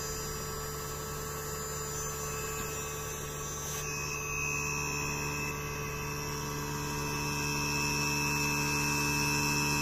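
Inverter air-conditioner compressor running on a test bench, driven by its inverter board: a steady electrical hum of several tones, with a thin high whine joining about four seconds in. The compressor is running normally under load.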